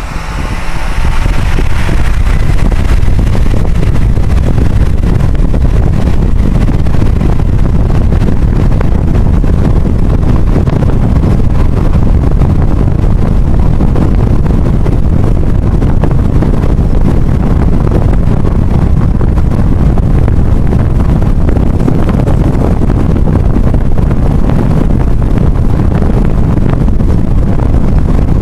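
Steady, loud rush of wind and road noise from a car moving at highway speed, heavy in the low end. It builds up over the first two seconds, then holds.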